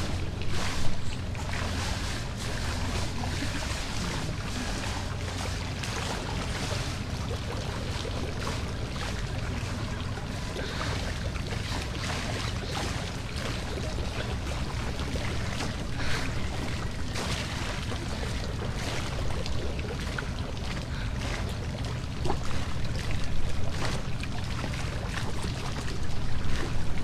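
Pool water lapping and sloshing at the edge of an outdoor swimming pool, over a steady low rumble of wind on the microphone. The splashing gets louder near the end as a swimmer moves through the water.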